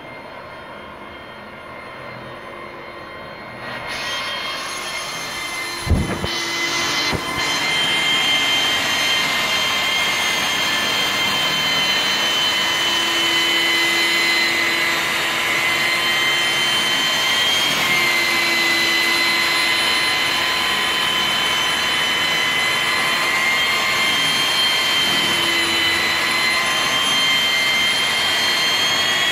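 Handheld electric angle grinder with a felt polishing pad running with a steady high whine, the pad rubbing over glass coated in polishing compound to buff out stains and scratches. It is quieter for the first few seconds and gets louder after a sharp knock about six seconds in.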